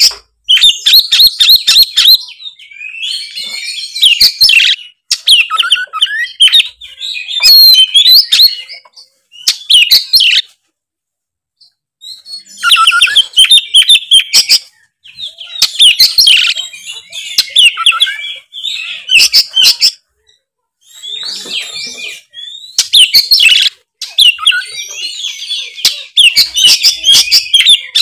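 Oriental magpie-robin (kacer) singing loudly in full song: varied whistled phrases mixed with rapid chattering notes, delivered in bursts and broken by two short pauses.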